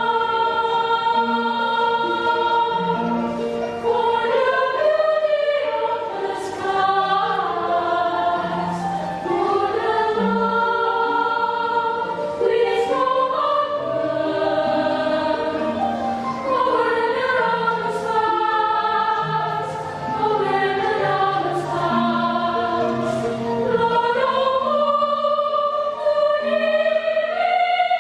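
Choir singing in several parts, holding and moving through sustained chords, with brief 's' consonants sung together now and then.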